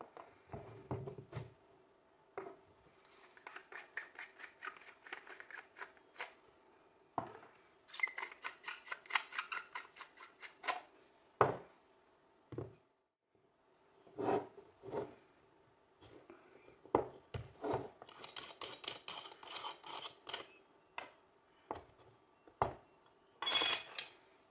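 Threaded metal parts of a BPShTs 10x50 binocular being unscrewed by hand, the threads grating in quick runs of fine clicks a few seconds long, with separate knocks as parts are set down on the wooden table. A louder scraping rattle comes near the end.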